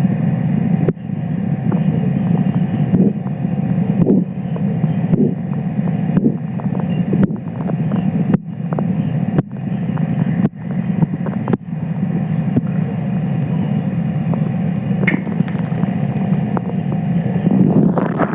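Korotkoff sounds picked up over the arm's artery under a deflating blood pressure cuff: rhythmic pulse beats about once a second over a steady low rumbling noise. The beats stop about twelve seconds in, which marks diastolic pressure.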